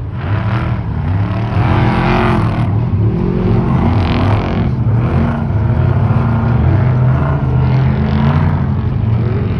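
Off-road race trucks' engines revving hard, their pitch climbing and dropping several times over, with louder swells about two and four seconds in.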